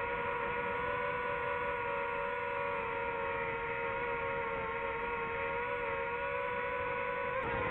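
DJI FPV drone's motors and propellers whining steadily in flight, with a brief dip and recovery in pitch near the end.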